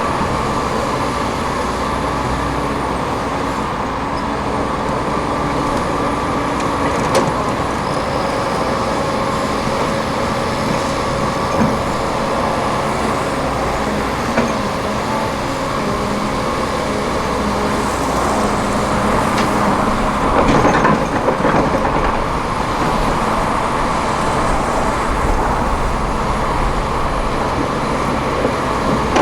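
Heavy diesel excavator engine running steadily under load, with a few short metallic knocks and a louder stretch about two-thirds of the way through.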